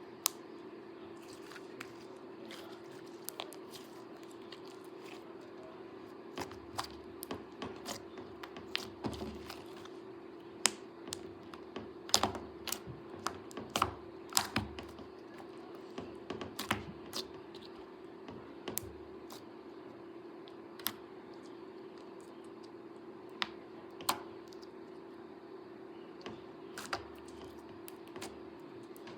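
Silver-blue slime being pressed and poked by hand, giving irregular sharp clicks and pops, some in quick clusters, over a steady low hum.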